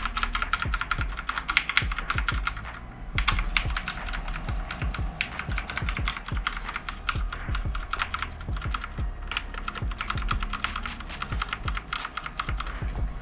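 Computer keyboard's F2 key tapped rapidly and over and over, a dense run of clicks, to enter the BIOS while the computer starts up.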